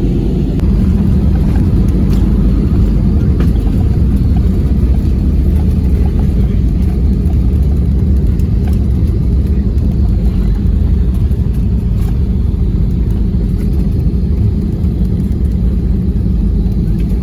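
Steady, loud low rumble of an airliner's engines and airflow heard from inside the passenger cabin during the landing.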